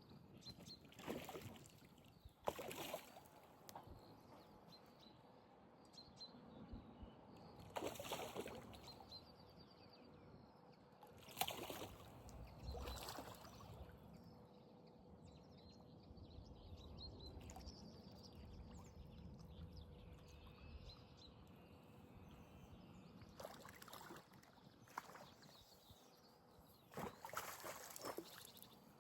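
Near-silent lakeside ambience with a handful of short, faint bursts of noise a few seconds apart and faint bird chirps.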